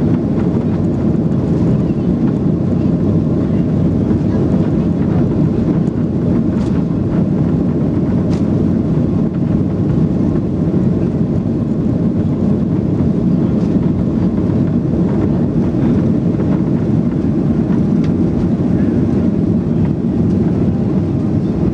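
Inside the cabin of a Boeing 737-800 during the take-off roll: its CFM56-7B turbofans at take-off thrust and the rolling wheels make a steady, loud rumble, with a few faint clicks.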